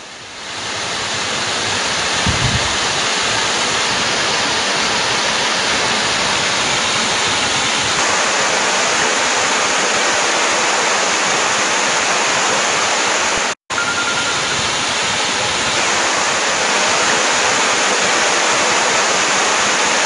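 Waterfall pouring over rock: a steady, even rush of falling water, briefly cut off for a split second about two-thirds of the way through.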